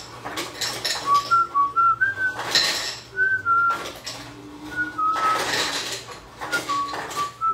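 A person whistling a tune in short stepping notes, over loud clatters and clinks of ice cubes and glassware.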